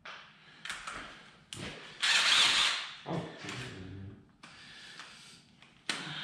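Cordless drill running in short bursts, spinning out the 10 mm bolts of the roller-lifter trays in an LS 4.8 V8 block. The loudest run comes about two seconds in.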